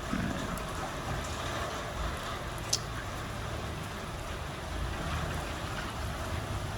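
Steady rain falling, an even hiss, with a single small sharp click about two and a half seconds in.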